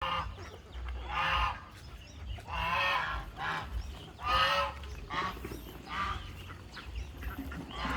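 Geese honking: a series of short, nasal honks, about one a second.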